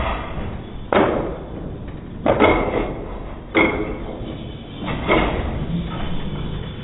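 Basketballs banging against the backboard and rim of an arcade basketball hoop machine as a player shoots one after another: about four loud knocks, each with a short ring after it, over steady arcade background noise.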